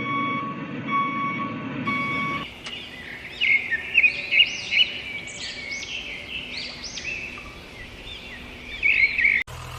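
A vehicle's reversing beeper sounds a repeated beep over a low engine rumble, stopping abruptly about two and a half seconds in. Birds then chirp busily, in quick rising-and-falling calls, for the rest of the time until a sudden cut near the end.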